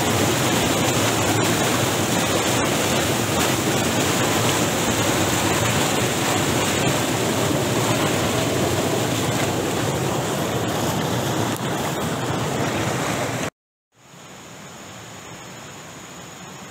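Swift river rapids rushing and splashing over boulders: a loud, steady rush of white water. About thirteen seconds in it cuts off abruptly, leaving a much quieter background.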